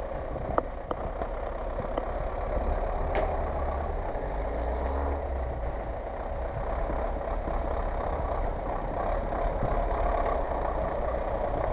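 Heavy off-road truck's engine running steadily at low speed as the truck crawls through snow.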